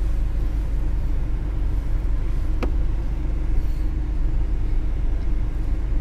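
Steady low rumble of a car's engine and tyres heard from inside the cabin while driving, with one small click about two and a half seconds in.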